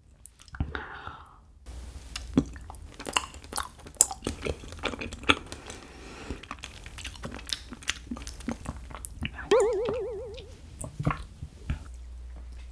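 Close-miked chewing of honey jelly squeezed from its bottle, with many short sharp clicks of the mouth. A brief wavering tone comes about ten seconds in.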